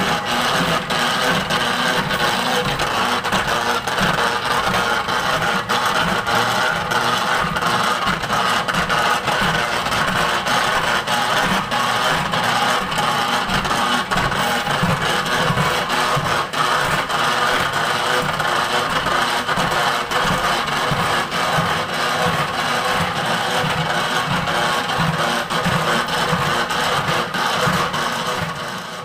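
Peanut-coating machine for kacang sukro running, a steady rattle of many small clicks over a low motor hum, fading out near the end.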